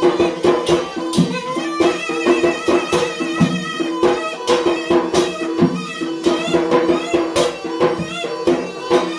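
Yemeni mizmar reed pipe playing a wavering, ornamented melody over a steady drone, with a drum beating a fast, regular rhythm: traditional bara'a dance music.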